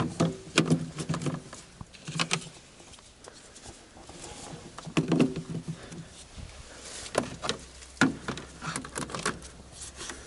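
Sharp clicks and clacks of spring-loaded jump-starter battery clamps being opened and clipped onto car battery terminals, with cable-handling knocks. A few brief low tones sound near the start, about two seconds in and about five seconds in.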